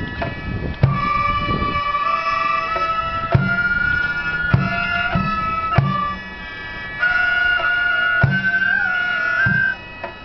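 Gagaku court music for a bugaku dance: a wavering, gliding reed melody over sustained shō mouth-organ chords, marked by drum strokes every second or two. The music drops quieter for about a second just after six seconds in, and again near the end.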